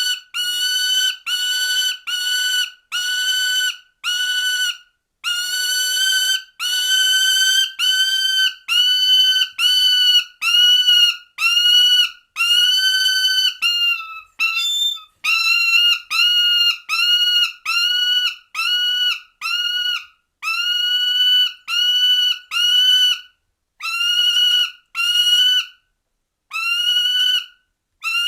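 Prairie falcon calling over and over, about one drawn-out call a second, each sliding up briefly at the start and then holding its pitch.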